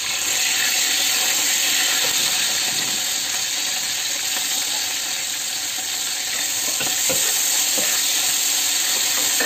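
Preserved tofu (fermented bean curd) frying with a steady sizzle in hot oil in a wok. A metal spatula stirs it and now and then scrapes or taps the pan.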